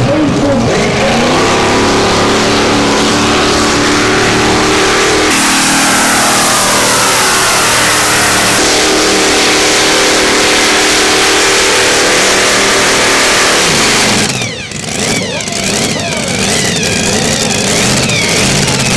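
Supercharged engine of a modified pulling tractor at full throttle, pulling the sled with a steady high-revving drone. About fourteen seconds in, the engine drops off sharply as the pull ends, then revs up and down in several blips.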